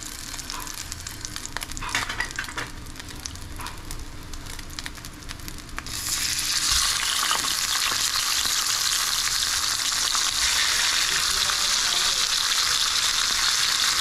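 Hot oil crackling lightly in a stainless steel frying pan. About six seconds in, a talakitok (trevally) steak goes into the oil and the frying jumps to a loud, steady sizzle.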